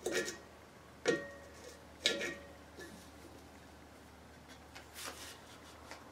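Ratchet wrench working a brass fitting on an empty steel propane cylinder: three sharp metallic clicks about a second apart, each with a short ring, followed by a few fainter clicks.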